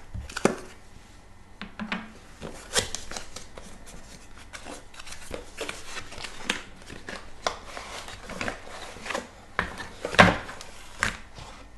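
Cardboard product packaging being cut and handled: a knife slitting the seal, then the box sleeve opened and an inner cardboard box slid out, giving irregular scrapes, rubs and clicks, with a louder knock about ten seconds in.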